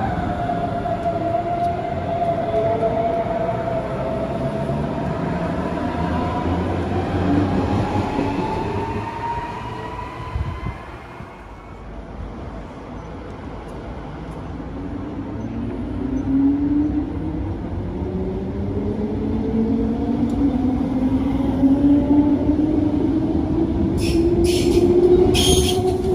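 Electric trains pulling away, the whine of their traction motors rising in pitch as they gather speed over rumbling rail noise. It happens twice, with a brief drop in level between, and a few sharp clicks near the end.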